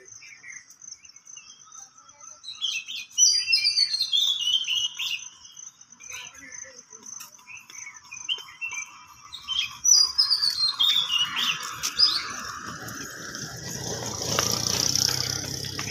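Birds singing at dawn, with two quick runs of notes stepping down in pitch, over a steady high insect trill. Near the end a vehicle passes on the road.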